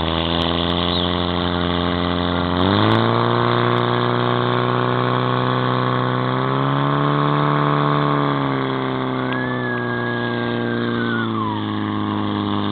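Portable fire pump engine running hard, its revs jumping up early on, rising a little further, then easing back down twice toward the end. A thin high tone sounds over it near the end and slides down.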